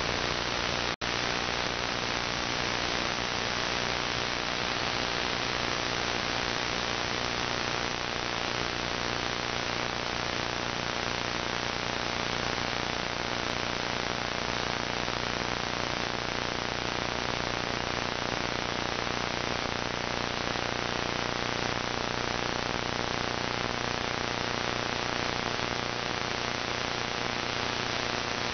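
Radio static from a web SDR receiver, with no station audible: a steady hiss with a faint hum underneath. It cuts out for an instant about a second in.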